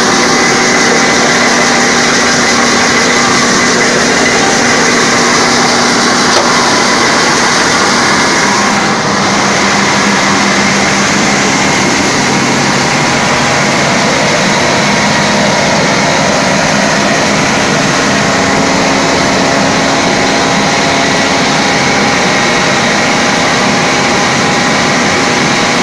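Dry rice polishing machine running steadily while polishing rice, a continuous loud mechanical drone with a steady hum and whine.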